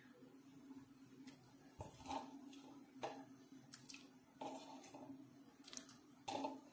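Faint soft taps and small splashes, about six of them, as pieces of dried anishi (fermented colocasia leaf) are broken into a pot of water, over a steady low hum.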